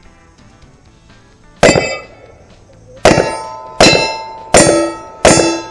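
Five pistol shots, each followed at once by the clang and ring of a struck steel target plate. The first stands alone, and the last four come quickly, about three-quarters of a second apart.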